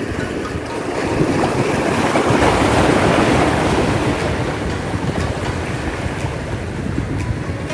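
Sea waves washing in over shore rocks, the rush swelling to its loudest about two to three seconds in and then easing, with wind buffeting the microphone.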